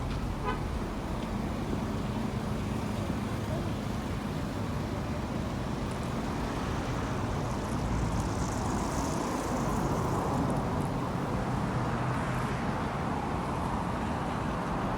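A motor vehicle running steadily: a continuous low engine hum and rumble, level throughout.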